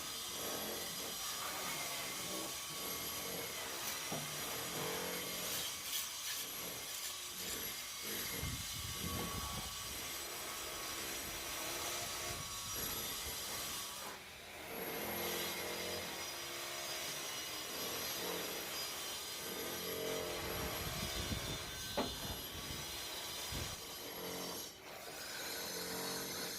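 Continuous rubbing and scraping from hand work on a surface, with a couple of sharp knocks.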